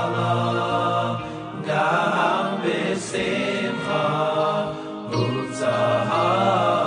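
Music with a group of voices singing together in a chant-like style.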